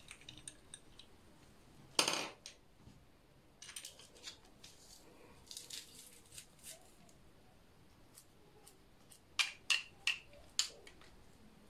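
A kitchen knife scraping and tapping against a metal garlic press to clear crushed garlic from it. There is a sharp scrape about two seconds in, scattered light clicks after it, and four quick metallic clicks near the end.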